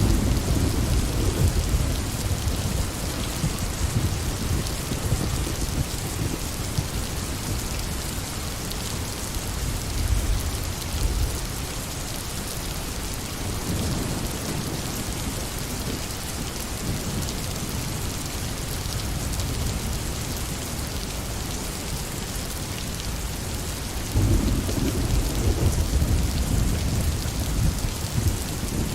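Steady rain falling, an even hiss, under deep low rumbles that swell and fade a few times; a louder rumble sets in suddenly about 24 seconds in.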